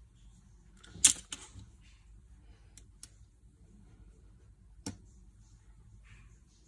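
A few sharp clicks and taps of boxes and packaging being handled during an unboxing. The loudest is a pair of clicks about a second in, with fainter ticks around three seconds and another click near five seconds.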